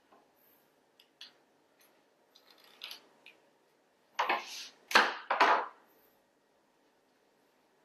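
A kitchen knife working on a cutting board: a few light clicks and taps, then three loud, short knocks and scrapes about four to six seconds in.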